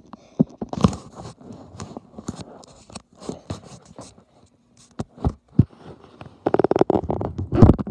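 Handling noise: irregular scrapes, scratches and knocks as the recording phone is moved about, ending in a fast run of clicks over the last second or so.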